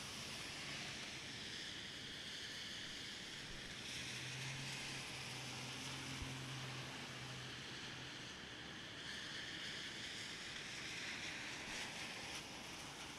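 Steady hiss of rain and traffic on a wet city street. It swells twice as vehicles pass on the wet road, and a low engine hum comes in about four seconds in and lasts a few seconds.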